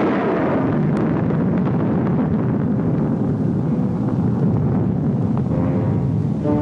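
A sudden crack of thunder, followed by a steady storm rumble of wind and rain; music comes back in near the end.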